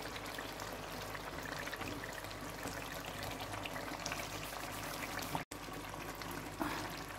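Chicken curry softly sizzling and bubbling in a hot clay handi, a steady fine crackle that goes on after the gas is turned off because the clay pot holds its heat. The sound cuts out for an instant about five and a half seconds in.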